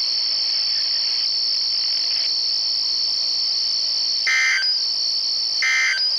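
Steady high-pitched insect chirring, with two short electronic beeps about a second and a half apart in the second half.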